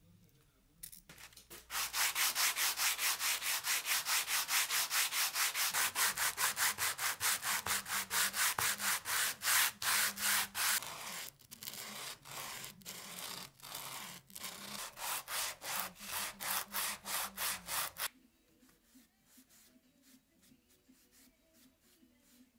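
A small hardwood block rubbed back and forth by hand on a sheet of sandpaper laid flat, a quick even rhythm of rasping strokes. The strokes grow sparser and softer partway through and stop a few seconds before the end.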